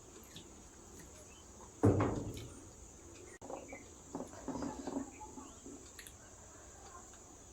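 Close-miked eating sounds: small mouth clicks and chewing noises. About two seconds in there is one loud, short, low sound, and a run of short chewing or smacking sounds comes between four and five seconds in.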